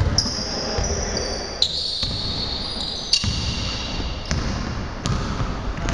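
A basketball bouncing on a hardwood gym floor as a player dribbles it up the court, with irregular sharp bounces and high-pitched sneaker squeaks.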